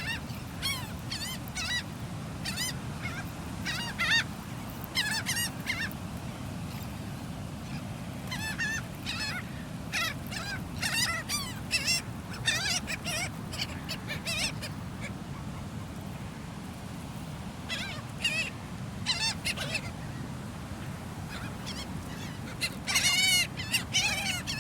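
A flock of seagulls squawking and calling in many short, overlapping cries while competing for thrown food, over a steady low rumble.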